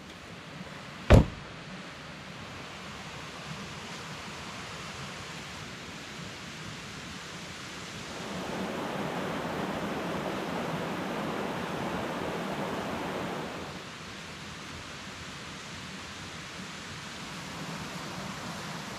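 Steady rush of a flowing mountain creek, louder for about five seconds in the middle. One sharp click comes about a second in.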